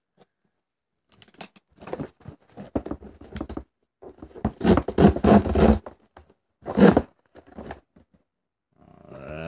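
Cardboard shipping box being torn open: irregular ripping and scraping of packing tape and cardboard, loudest in a long rip around the middle, with a short sharp rip a little after.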